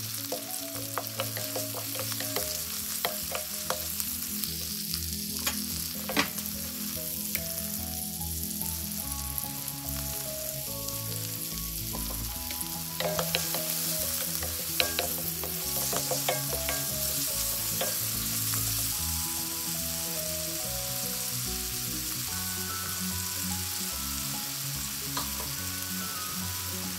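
Chopped red onion and garlic sizzling as they fry in a stainless steel wok, with a wooden spoon stirring and knocking against the metal now and then.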